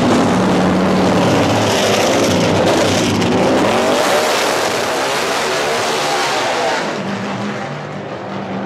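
NASCAR stock car's V8 revving hard with the rear tyres spinning and squealing in a burnout as the car pulls away. The sound drops a little near the end as the car heads off.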